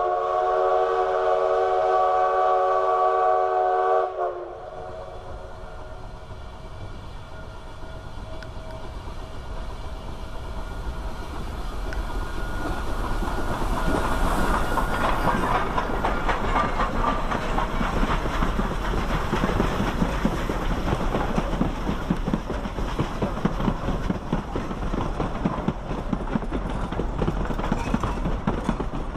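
Durango & Silverton narrow-gauge steam locomotive No. 480, a K-28 Mikado, blowing a steady multi-note whistle chord for about four seconds, cut off sharply. It then works past with steam exhaust and the low rumble and clatter of its coaches on the rails, growing louder over the next ten seconds and staying loud.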